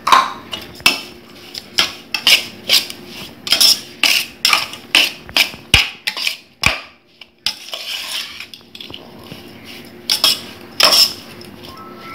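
Steel spoon clinking and scraping against a stainless steel bowl while stirring crumbly ragi vermicelli puttu with sugar: irregular sharp clinks, about one or two a second, with a short lull a little past the middle.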